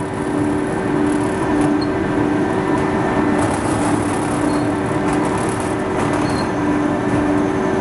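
Textile waste tearing machine running: a loud, steady mechanical drone with a constant hum that swells and fades every second or so, and faint scattered ticks.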